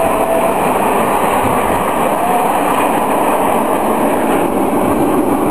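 A formation of nine Canadair CT-114 Tutor jets flying past, making a loud, steady jet engine roar with a faint rising whine about two seconds in.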